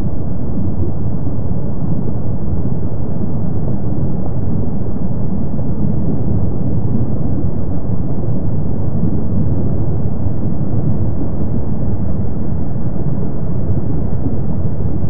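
Kilauea eruption rumble: a steady, deep rumble from the fountaining lava lake that holds even throughout, with no separate bursts or pops.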